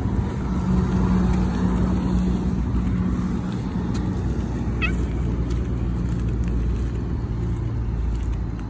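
A motor vehicle's engine running, a steady low hum that eases off a little in the second half.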